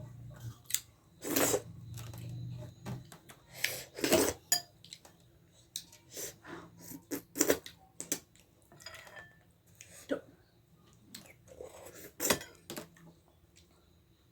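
Eating sounds: irregular clinks and scrapes of utensils or fingers on a plate, with chewing, while dhido and nettle soup are eaten.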